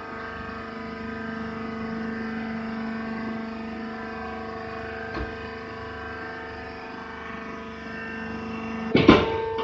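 Hydraulic rice husk bagging press baler running with a steady machine hum. There is a single knock about five seconds in and a loud clatter about nine seconds in.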